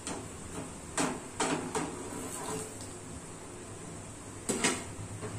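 Metal pan lid clinking and knocking as it is handled and set down on a pot: a few sharp knocks in the first two seconds and a louder double knock near the end.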